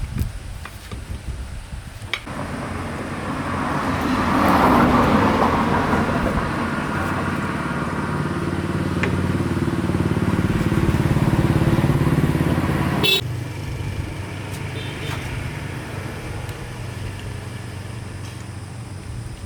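An engine running: it starts up about two seconds in and builds to a loud, steady run. About two-thirds of the way through it drops off suddenly with a click, and a quieter hum continues.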